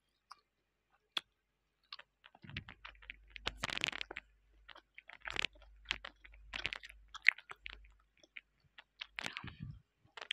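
Close-up chewing of a breaded, fried mozzarella sausage: irregular crunchy crackles and wet mouth sounds, sparse at first and busier from about two seconds in.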